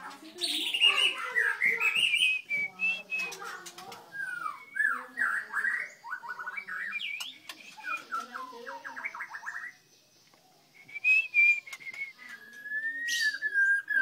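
Caged songbirds singing: a varied run of whistled phrases, chirps and quick repeated-note trills, broken by a short silence, then a long wavering whistle near the end.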